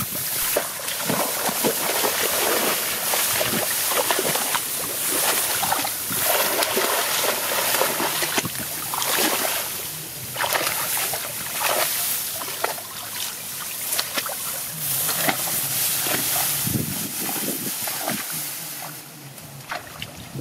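Water splashing and sloshing with rice stalks brushing and rustling, as a person wades and moves through a flooded rice paddy; a steady run of irregular splashes.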